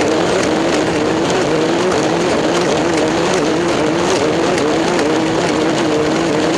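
Vehicle engine running steadily, its pitch wavering slightly up and down without revving.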